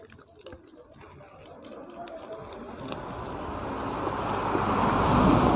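Close-miked wet chewing of a mouthful of pork curry, with small clicks and squelches, getting louder toward the end.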